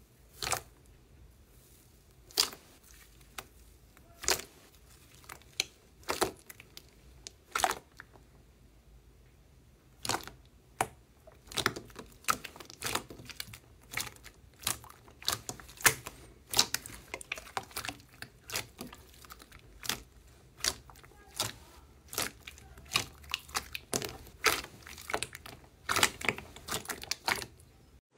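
Soft, thick purple pudding slime squeezed and pressed by hand, giving sharp popping clicks: a few spaced about two seconds apart at first, then many in quick irregular succession from about ten seconds in.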